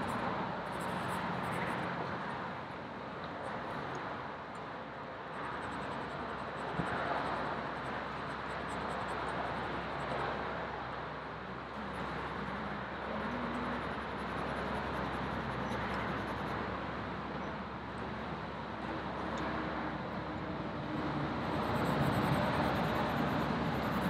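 Steady hum of road traffic going by, swelling louder near the end as a vehicle passes. Charcoal scratches lightly on the paper of a sketch pad.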